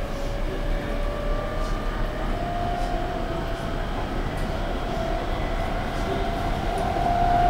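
Hankyu 8300 series electric train running, heard inside the passenger car: a steady rumble of running noise with a motor whine slowly rising in pitch as the train gathers speed.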